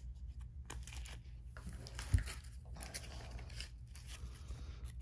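Panini Prizm basketball cards being handled and sorted, the slick card stock rustling and clicking as cards slide over one another. There is a soft low thump about two seconds in as cards are set down on the mat.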